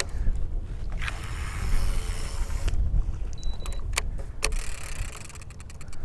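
A cast with a baitcasting reel: the spool whirs for about a second and a half as line pays out, then sharp clicks as the reel is engaged and the handle turned. A steady low wind rumble on the microphone runs underneath.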